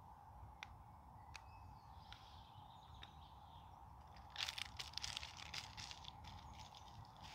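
Faint woodland ambience with a few short, thin bird chirps. About four seconds in comes a close burst of crackling, lasting about two seconds.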